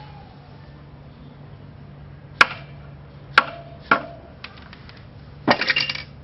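Sharp metallic knocks: three single taps about a second apart, a few faint clicks, then a quick run of ringing knocks near the end. The greased front axle of a Triumph Bonneville is being tapped through the fork and wheel hub.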